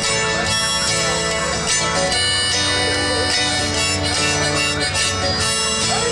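Live acoustic instrumental intro: an acoustic guitar and a smaller steel-strung instrument strummed together under a sustained, held-note melody, played through a PA system.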